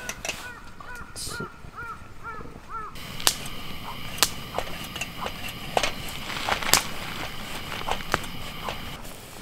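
A quick run of short squeaky chirps, about three a second, then from about three seconds in a pressure lantern hissing steadily with its mantle lit, with sharp metallic clicks as its valve and pump are handled.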